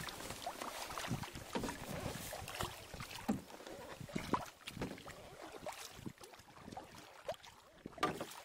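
Kayak paddle strokes in river water: irregular splashes and drips from the blades, with a sharper splash about eight seconds in.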